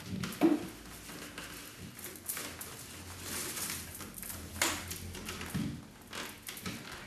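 Fiber rush paper cord rustling and scraping as a strand is pulled across and woven around a chair's seat rails, with a few sharp knocks, the loudest near the start.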